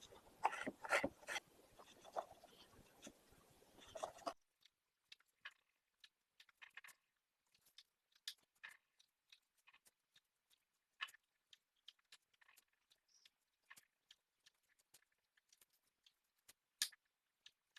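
Faint, irregular crisp clicks and crunches of a knife cutting and peeling a snow pear on a board, with one louder cut near the end.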